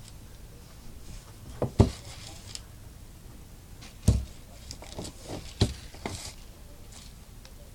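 Packaged fishing jigs being handled and set down: about half a dozen scattered clicks and knocks, the loudest about two and four seconds in.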